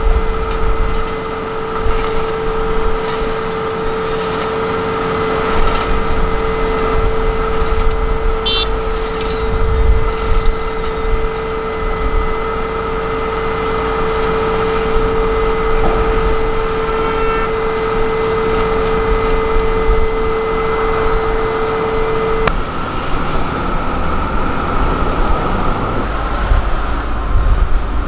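Asphalt paver running with a steady low rumble and a steady whine that cuts off suddenly about three-quarters of the way through, with scattered clicks and scrapes over the first half.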